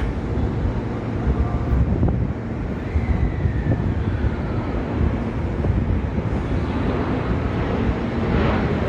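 Electric train running at the station platform: a steady heavy rumble with a faint whine that falls in pitch about three seconds in, and the noise growing near the end.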